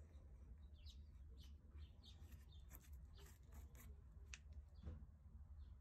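Near silence: a faint low hum with a few faint, short, high chirps scattered through.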